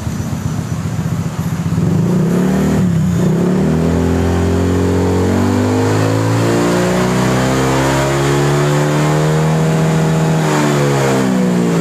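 Honda PCX 160 scooter's single-cylinder engine revving hard through an aftermarket stainless 'standar racing' exhaust, with the rear wheel spinning freely on the stand. Its pitch climbs steadily over several seconds as the wheel spins up to about 125 km/h, then drops back near the end. Played indoors, it sounds a bit echoey.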